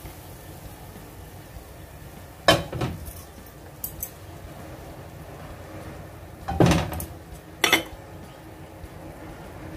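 Kitchen cookware clattering as a wok is emptied onto a plate: a few sharp knocks and short scrapes in small clusters, the loudest about two and a half and six and a half seconds in.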